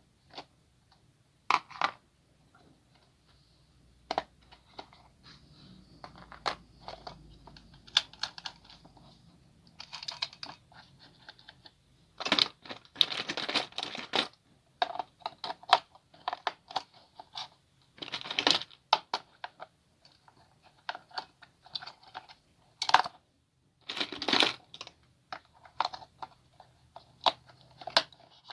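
Hands handling plastic toy parts and packaging: irregular clicks, taps and short crinkling rustles, with denser clusters in the middle and near the end.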